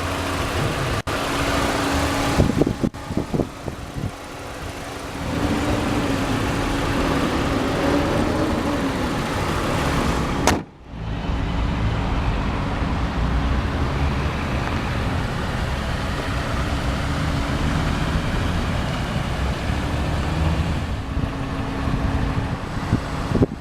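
Volkswagen 1.8 L turbocharged inline four-cylinder (1.8T) idling steadily, with a short sudden drop in sound about ten seconds in.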